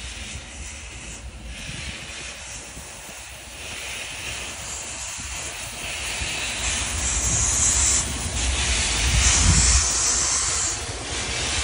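500 mm gauge steam locomotive of the Southern Fuegian Railway venting steam with a loud hiss, swelling in gusts over a low rumble and growing louder toward the end.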